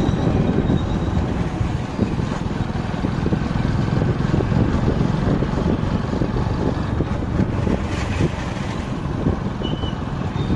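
Wind buffeting the microphone of a moving motorcycle, over a steady rumble of engine and road noise.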